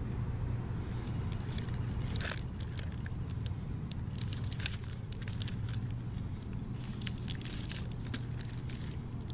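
Plastic shrink-wrap on a small fireworks box crinkling and crackling in irregular bursts as it is handled in the hand, over a steady low hum.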